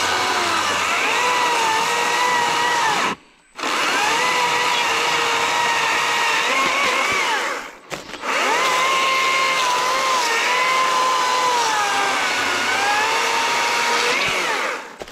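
Stihl MSA 120 C battery-powered electric chainsaw cutting through a log, its motor whine dipping and rising in pitch as the chain bites. The motor stops briefly twice, a little after three seconds and about eight seconds in, and stops again just before the end.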